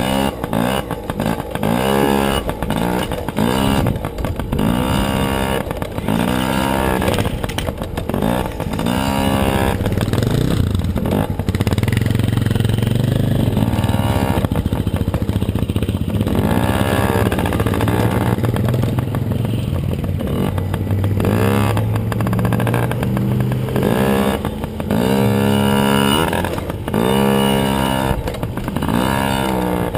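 Small child's dirt bike engine, revved in short rising bursts about once a second, then held at a steady higher speed for about ten seconds midway, then revved in bursts again near the end.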